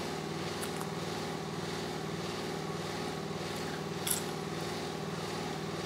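Steady mechanical hum of room air conditioning, with several steady tones held level, and a faint click about four seconds in.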